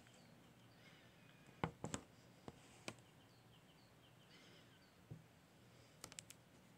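Near silence with faint, distant bird chirps and a handful of short, sharp clicks, the clicks coming in a quick run of three near the end.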